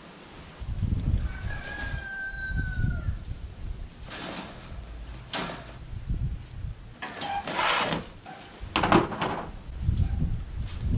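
Folding wire dog crate rattling and clanking as its metal panels are unfolded and set up, in several sharp bursts from about four seconds in. Wind buffets the microphone throughout.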